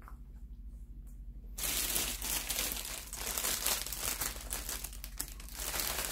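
Clear plastic bread bag crinkling and rustling as it is lifted and handled, starting suddenly about a second and a half in.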